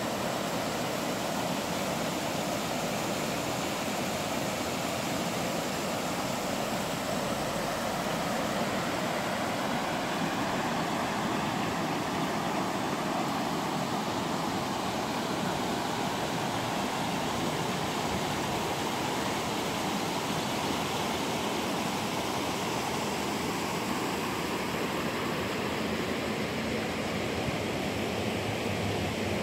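Water rushing steadily over a low river weir, an even unbroken rush of white water.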